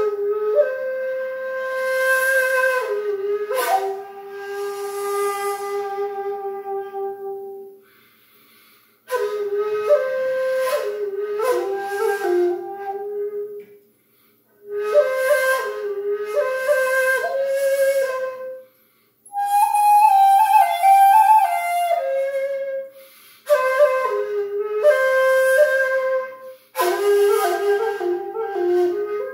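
Jinashi shakuhachi of the hitoyogiri series, 1.8 length in D, played solo in slow, breathy phrases separated by short pauses for breath. One phrase in the middle sits higher and steps down before the melody returns to its lower notes.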